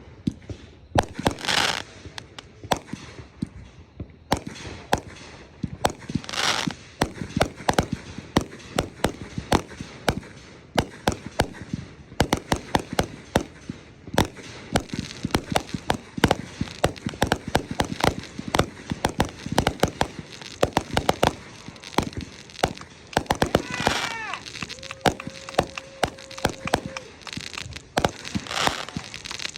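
Consumer fireworks going off: a dense, irregular run of sharp bangs and crackles, with a few longer hissing bursts.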